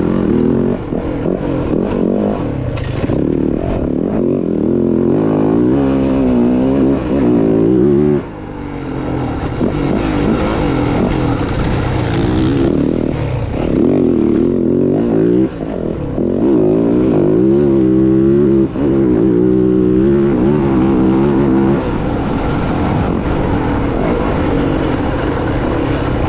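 Dirt bike engine running hard, its pitch repeatedly climbing with the throttle and dropping back. A steady hiss joins in for a few seconds about a third of the way through.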